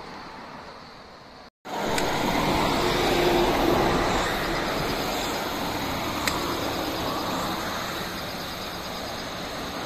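Steady rushing background noise, with a sudden brief drop-out a second and a half in and two faint clicks later on.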